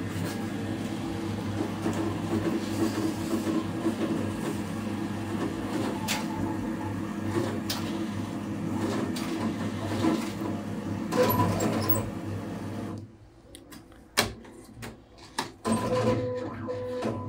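ATM cash dispenser working through a withdrawal: a steady mechanical hum that stops suddenly, then several sharp clicks and knocks as the notes are presented, and short beeps near the end.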